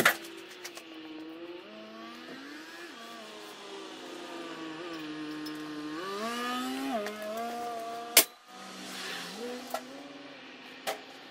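Sharp metal clanks from hand tools working on the truck's chassis, one at the very start and the loudest about eight seconds in, with smaller knocks after. Behind them runs a background of several tones that slide and shift in pitch.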